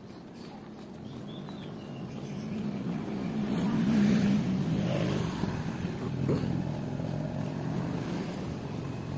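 Street traffic: a low vehicle engine rumble that swells to its loudest about four seconds in, then carries on steadily at a lower level.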